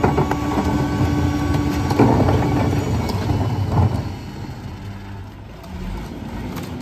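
1997 Mack RD rear-loader garbage truck running, with a steady high whine over the diesel engine. A loud knock comes at the start and another about two seconds in, as trash carts are handled at the hopper. About four seconds in the whine and engine drop away to a quieter, lower idle.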